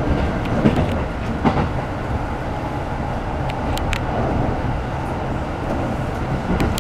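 Running noise inside a Keikyu New 1000 series commuter train car: a steady low rumble of the train running on the rails, with a few sharp clicks scattered through it.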